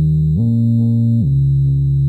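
Electronic music: a low synthesizer tone holding each note, stepping up to a higher note about half a second in and back down a little after a second.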